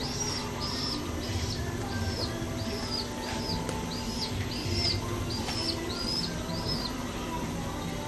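Young domestic pigeon (squab) squeaking, about a dozen short high arched peeps close to two a second, stopping near the end: the begging call of a chick not yet feeding itself.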